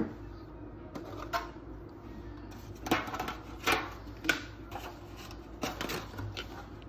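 Silicone spatula scraping and stirring cake batter in a plastic bowl: a string of short scrapes and soft knocks against the bowl, most of them in the second half, over a low steady hum.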